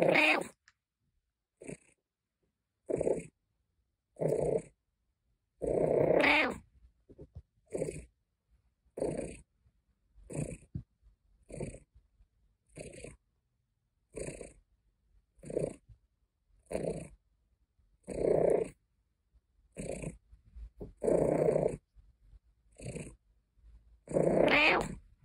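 British Shorthair cat making a run of short grumbling, complaining calls, one every second or so, a few of them longer and louder.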